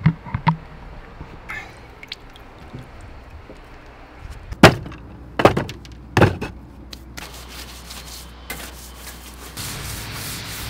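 Hollow wooden knocks as sawn log sections are set into a wooden barrel planter: two at the start and three louder ones in the middle. Near the end a stiff broom scrubs the narrowboat's roof in quick, repeated strokes.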